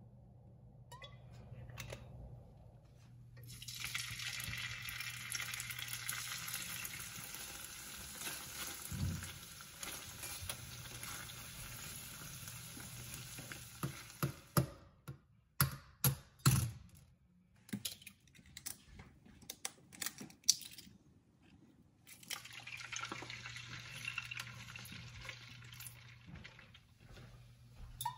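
Shrimp frying in hot oil in a nonstick frying pan, sizzling steadily. After about a dozen seconds, sharp clicks and knocks from wooden chopsticks turning the shrimp against the pan take over for several seconds, and the sizzling returns near the end.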